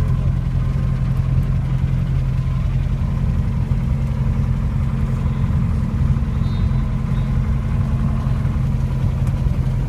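Helicopter engine and rotor heard inside the cabin: a loud, steady low drone that stays even throughout.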